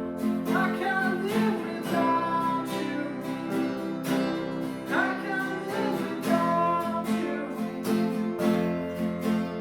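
A worship song: strummed acoustic guitar with a voice singing over it.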